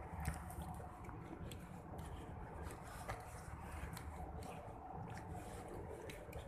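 Footsteps on a concrete walkway, heard as light irregular clicks over a steady low rumble.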